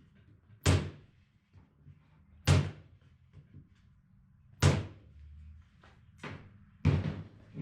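Brads being nailed into wooden bird feeder pieces: three sharp strikes about two seconds apart, then a few lighter knocks near the end.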